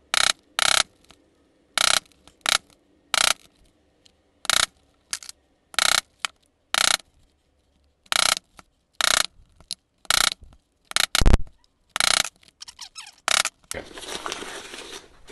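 A plastic-faced Thor mallet (UHMW head) striking a steel hollow punch through leather, about twenty sharp blows, often two in quick succession, with short pauses as the punch is moved to the next hole. Near the end the blows stop and masking tape is peeled off the paper hole pattern.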